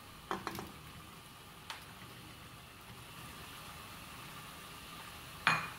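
Raw mutton pieces tipped by hand from a glass bowl into an aluminium pressure cooker: a few soft knocks and clatters in the first second or two, over a steady low background hum. A sharper knock comes just before the end.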